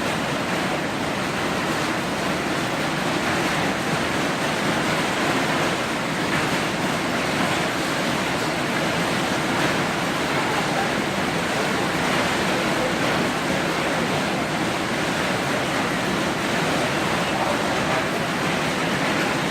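Hailstorm: a dense, steady noise of hailstones falling and striking.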